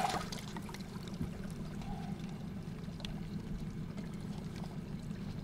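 Faint water splashing and dribbling beside a boat as a small pike thrashes at the surface on the line, over a steady low hum.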